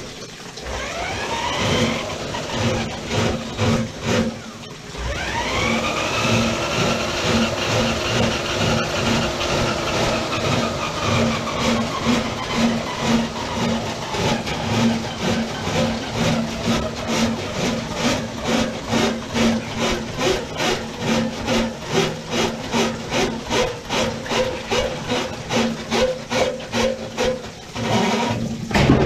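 Milwaukee cordless drain snake running to clear a plugged drain stack. Its motor spins up with a rising whine, stops briefly about four seconds in, spins up again, then runs steadily while the spinning cable knocks two to three times a second; it cuts off just before the end.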